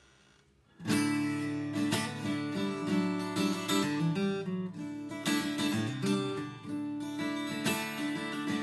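Seagull Maritime Mini Jumbo steel-string acoustic guitar strummed, starting just under a second in: a run of strokes with chords ringing and the bass notes changing.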